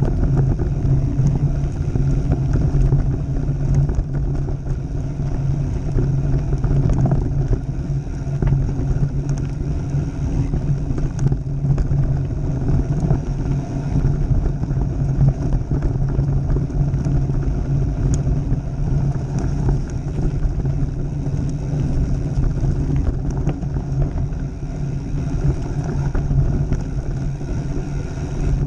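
Mountain bike rolling fast down a dirt trail: knobby tyres rumbling over gravel and wind rushing over the mount-held camera's microphone, with a steady low hum underneath.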